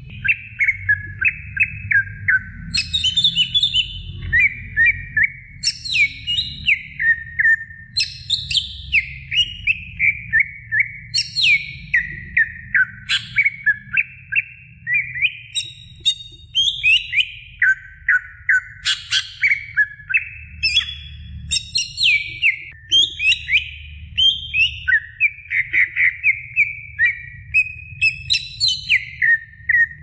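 Cucak ijo (green leafbird) singing non-stop: one phrase after another of quick, descending whistled chirps, with only brief pauses.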